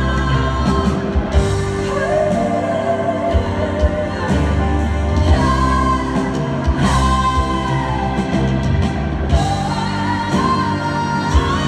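Two female singers performing a live duet with band backing, holding long sung notes that slide up and down.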